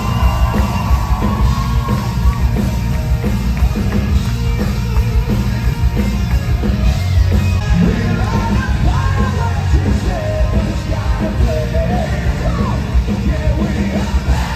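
Rock band playing live, heard from within the crowd in a large hall: a loud, steady drum beat at about two strokes a second under heavy low-end instruments, with a singer's voice gliding over it, mostly in the second half.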